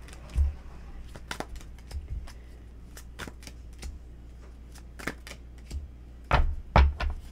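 Tarot cards being shuffled and handled: a scatter of short card clicks and flicks, with a few louder slaps near the end.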